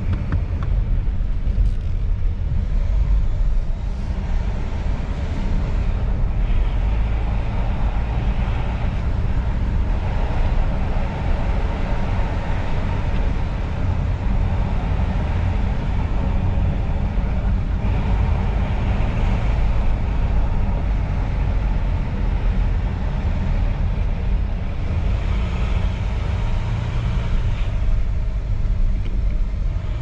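Cabin sound of a 2018 Volvo XC90 D5 on the move: the steady low drone of its four-cylinder twin-turbo diesel engine under tyre and road rumble. The road noise swells and fades several times.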